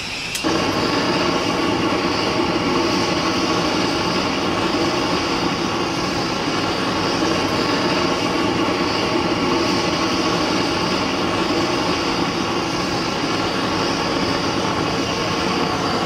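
Handheld long-wand gas torch burning steadily as it preheats graphite ingot molds, a continuous flame roar that starts about half a second in.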